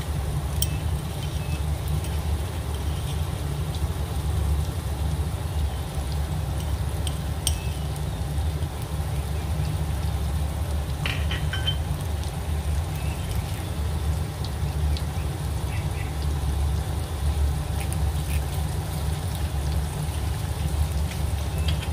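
A steady low hum with a few faint, brief clinks of a utensil on cookware.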